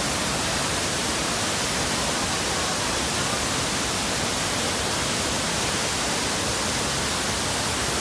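Waterfall rushing steadily: white water pouring down a rock cascade into a river pool, a constant even hiss of falling water.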